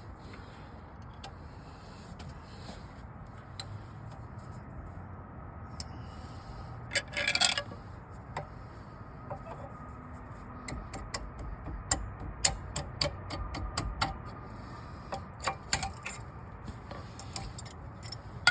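Scattered metallic clicks and clinks of old brake pad hardware clips being worked off the caliper bracket, with a louder rattle about seven seconds in and a quick run of clicks in the second half.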